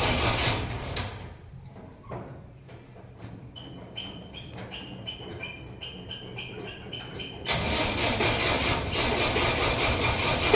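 Starter cranking a petrol Jeep's Hurricane F-head four-cylinder engine, which does not catch: a no-start. It stops about a second in and cuts back in suddenly about three-quarters of the way through. In between is a quieter stretch with a light, regular high chirping.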